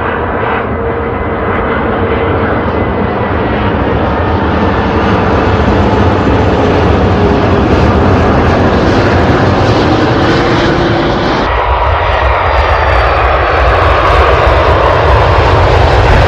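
Twin jet engines of an Airbus A330 airliner coming in to land: a loud, steady roar with engine whine tones sliding slowly down in pitch. About eleven and a half seconds in, the sound changes abruptly, the whine dropping away and a low rumble continuing.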